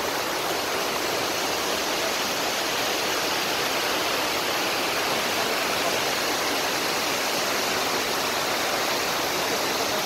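Mountain stream rushing over rocks in whitewater rapids: a steady, even rush of water.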